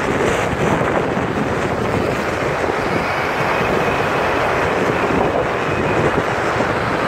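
Steady wind rush on the microphone mixed with road and traffic noise from a moving vehicle in city traffic.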